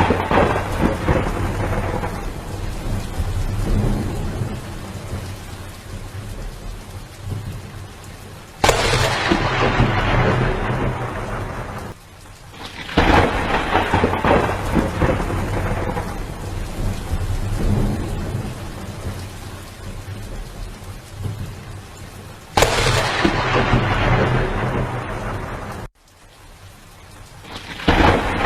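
Heavy monsoon rain with thunder: a steady downpour, with sudden loud claps of thunder several times that each rumble away over a few seconds.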